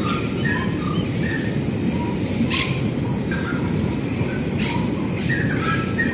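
Short chirping bird calls scattered over a steady low rumble, with a brief hiss about two and a half seconds in.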